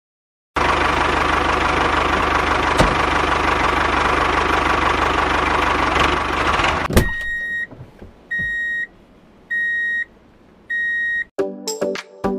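Tractor engine sound effect running steadily with a low chugging pulse, then a click and four evenly spaced beeps like a reversing alarm. Music starts near the end.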